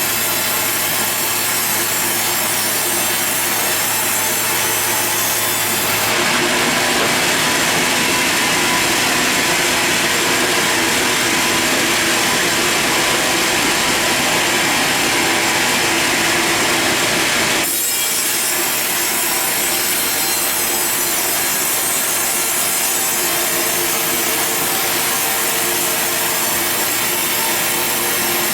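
Sawmill saw running and cutting through a log. A steady machine sound runs throughout, with a harsh cutting hiss that comes in strongly about six seconds in and drops away suddenly about two-thirds of the way through.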